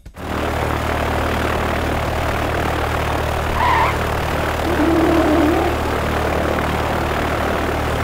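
Propeller airplane engine running with a steady droning hum. A few short higher tones sound briefly around the middle.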